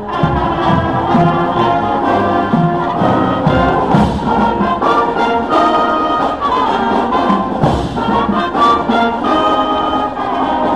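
Marching band playing live, a brass section of trumpets and trombones carrying a tune with percussion hits underneath.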